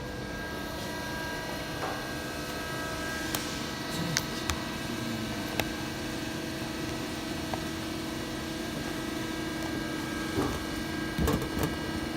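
HAFA-70 semi-automatic saw-blade machine running with a steady hum, with a few sharp clicks and a short cluster of knocks near the end.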